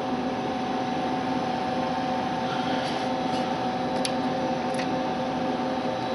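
Steady machine hum with a few constant tones in it, and four faint light clicks in the second half.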